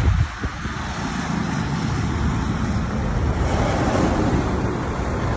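Road traffic noise: a steady rumble of vehicles passing on a highway, dipping briefly just after the start.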